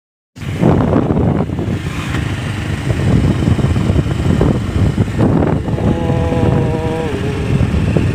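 Motorcycle engine running while riding, heard from the moving bike with wind rushing over the microphone. Just past the middle a steady tone sounds for over a second and dips in pitch as it stops.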